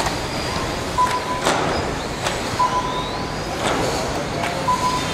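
Small radio-controlled cars running on an outdoor course: a steady hiss with several sharp clacks and a brief rising motor whine about halfway through. Three short steady high beeps sound along the way.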